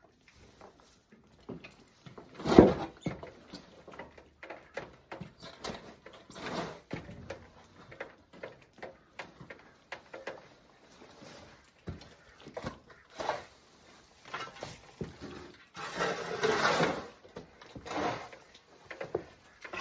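Irregular knocks, taps and rustling of cleaning work in an emu pen, with a louder thump about two and a half seconds in and a longer scraping rustle around sixteen seconds in.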